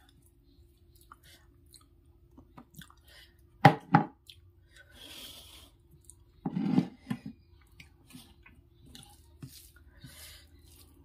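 Eating rice and vegetable curry by hand from a steel plate: fingers squishing and mixing the food, with two sharp clicks about four seconds in, then a mouthful taken and chewed.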